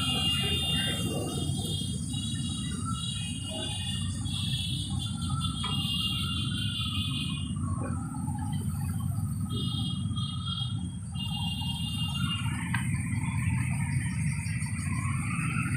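Street traffic ambience: a steady low rumble of motorcycles and auto-rickshaws on the road. A high shrill trilling comes and goes in spells over the first eleven seconds.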